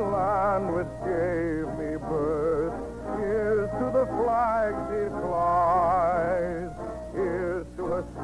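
Vocal music from an old radio broadcast: a singer holding sustained notes with a wide vibrato, in phrases of a second or two broken by short breaks, over a steady low hum in the recording.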